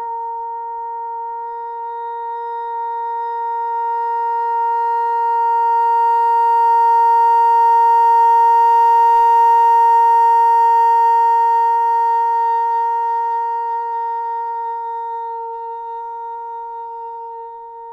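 Bassoon playing a single long tone held about eighteen seconds, swelling louder to the middle and tapering back down. The tone stays consistent, though the player felt she did not control the pitch very well.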